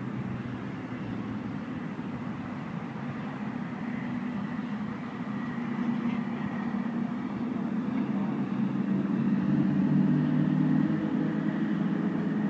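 A steady engine drone with a low hum, growing louder in the second half.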